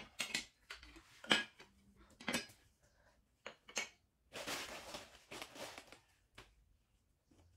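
Metal garden hand tools with plastic handles (hand fork, cultivator, trowels) set down one by one on a hard floor, several sharp clinks and knocks. Then plastic packaging rustles for about two seconds as a pair of gloves is unwrapped.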